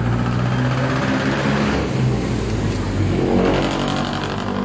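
A motor vehicle engine running, its pitch shifting up and down, with a rise in revs about three and a half seconds in.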